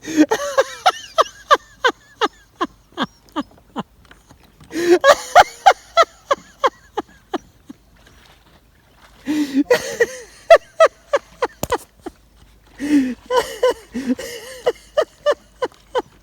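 Hearty, uncontrolled laughter in several long bouts of rapid 'ha-ha-ha' pulses, about four a second, with short breathless pauses between bouts.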